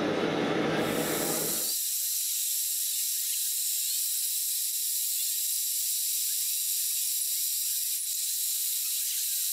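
A steady, high-pitched hiss with no low end. It begins abruptly after a fuller sound cuts off about two seconds in.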